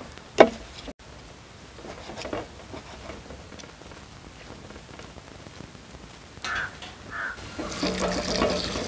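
Water poured from a steel vessel into a steel bowl of chopped raw chicken, splashing and running for the last second or so. Before it, only faint handling sounds of chicken pieces on a plastic cutting board.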